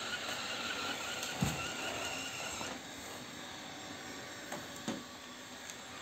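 360 S9 robot vacuum-mop running across a laminate floor, a steady motor and brush whir with faint steady tones, as it vacuums and wet-mops. A soft low thump comes about one and a half seconds in, and the whir drops a little from about three seconds in.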